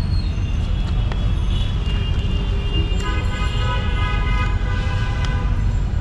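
Steady low rumble of street traffic, with a vehicle horn sounding one long held note from about halfway through until just before the end.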